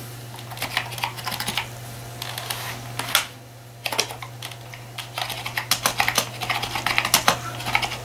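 Typing on a Zenith Data Systems RS 6000 keyboard: quick runs of key clicks with a short pause a little after three seconds in. Under it runs a steady low hum, the ambient noise of the old micro AmigaOne computer.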